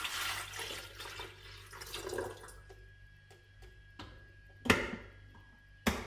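Water pouring from a plastic measuring cup into an empty Philips HD4646 electric kettle for about two and a half seconds, then two sharp plastic clicks near the end as the kettle lid snaps shut and the kettle is switched on.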